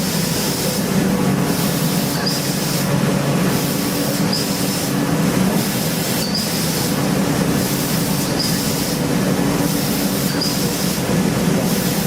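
CNC machine tool cutting metal on an engine block: a steady mechanical hum and hiss, with a brief high squeal about every two seconds.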